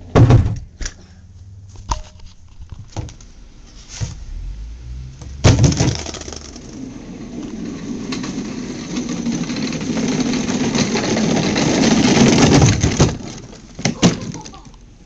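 Small hard wheels rolling fast over paving stones: a rough rumble that builds for about seven seconds and then stops abruptly. It is followed by two sharp knocks as the plastic toy car tips over. A few loose knocks and bumps against the camera come before the rolling starts.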